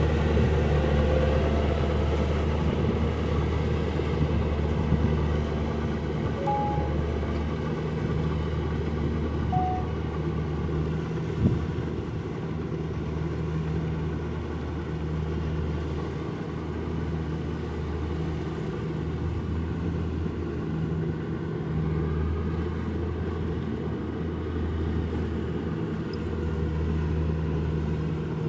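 Kubota rice combine harvester running steadily while cutting, a continuous low engine hum under the noise of the working machinery, with a single sharp knock about eleven seconds in.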